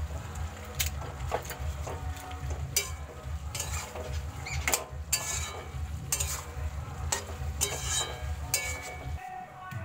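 Food sizzling in a pan while it is stirred with a spatula, which scrapes and clinks against the pan every half second to a second. A steady low hum underneath cuts off near the end.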